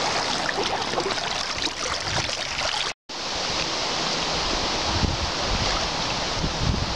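River water rushing over shallows around an inflatable kayak, with wind buffeting the microphone in gusts near the end. The sound cuts out completely for a moment about three seconds in.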